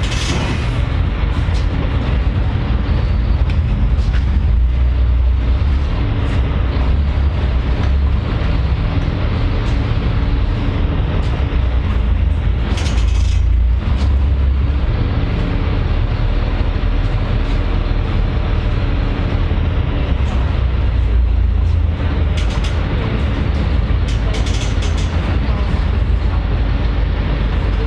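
Steady low rumble of a moving public-transport vehicle, with scattered short rattles and clicks over it and a brief hiss about thirteen seconds in.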